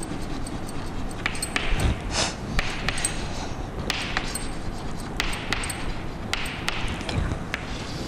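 Chalk writing on a chalkboard: short scratchy strokes and many light, sharp taps of the chalk against the board, over a steady low room hum.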